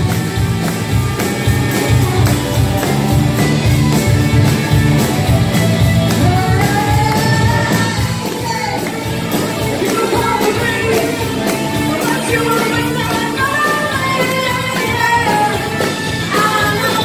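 Live rock band playing at full volume: drums, bass and guitars, with a gliding melodic lead line entering about six seconds in.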